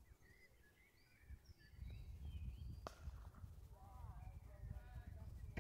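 Faint open-air ambience of birds chirping over a low wind rumble. About three seconds in comes a single sharp crack of a cricket bat striking the ball, and a faint distant shout follows.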